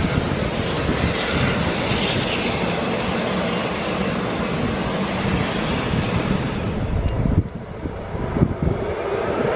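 Airplane engine noise, loud and steady, that dips briefly near the end and then builds again.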